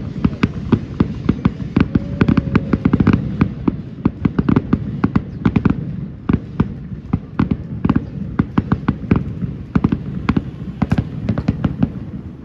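Fireworks grand finale: many shells bursting in quick succession, several sharp bangs a second over a continuous low rumble.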